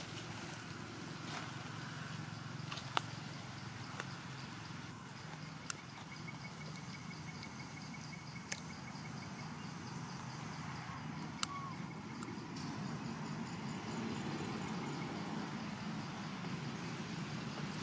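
Outdoor ambience: a steady low rumble with faint, evenly repeating insect trills and a few sharp clicks scattered through it.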